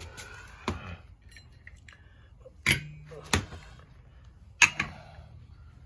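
Heavy metal parts set down on a concrete floor: about five sharp clunks with a short ring, the loudest about four and a half seconds in, as a scooter's clutch assembly and a cordless impact wrench are put down.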